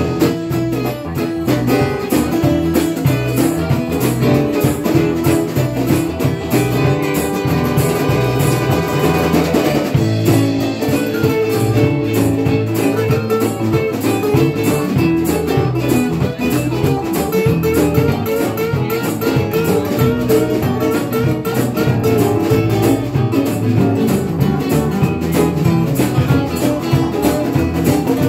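Live acoustic band playing an instrumental blues passage: several acoustic guitars strumming and picking over keyboard, continuous and steady in volume.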